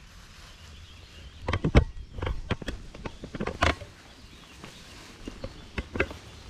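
Irregular sharp knocks and clattering thumps, loudest and most frequent from about a second and a half to four seconds in, with a few more near the end.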